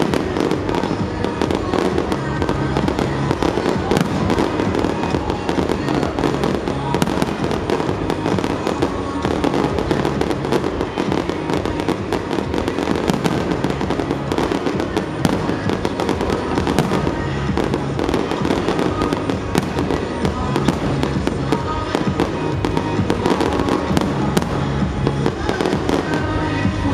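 Aerial fireworks bursting in rapid, continuous succession, a dense stream of bangs and crackles with no pause, with music playing underneath.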